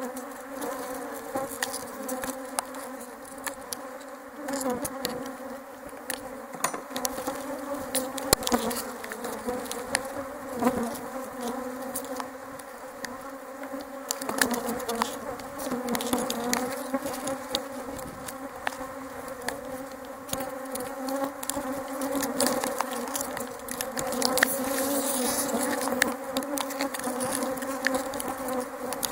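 Honeybees buzzing around opened hive boxes: a steady hum of many flying bees, with scattered light clicks throughout.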